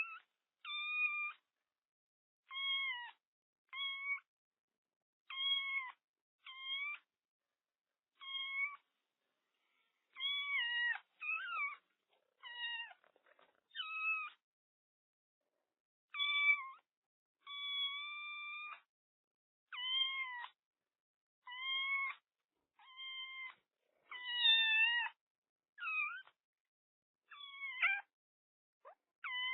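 Kitten meowing over and over: short, high-pitched mews about once a second, with silent gaps between them.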